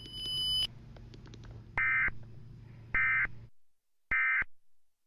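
Emergency Alert System end-of-message signal: three short bursts of digital data tones, about a second apart, the last near the end. A brief high tone and a low hum come before the bursts, and the hum stops after the second burst.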